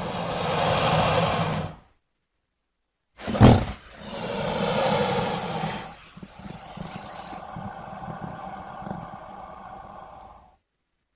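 Crocodile growls in two separate takes with a second of dead silence between them. The first swells for about two seconds. The second starts with a sharp, loud burst and runs on for about seven seconds, lower and quieter in its second half.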